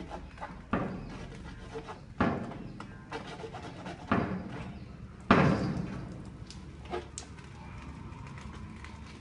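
Four sharp knocks or bangs, irregularly spaced one to two seconds apart, the loudest a little past five seconds in, with lighter clicks and taps between them.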